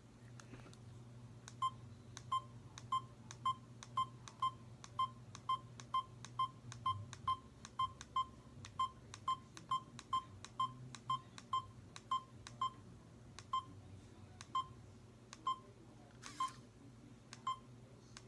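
Old digital camera's button beeping: a run of short, identical single-pitch beeps, about two or three a second, spacing out near the end, as the buttons are pressed to step through the stored pictures.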